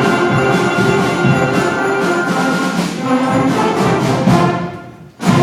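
Middle school ensemble with brass playing the closing bars of a piece. The music thins briefly, then ends on a short, loud final chord near the end.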